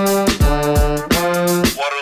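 Podcast intro theme music: held chords with a beat of drum hits, stopping just before the end.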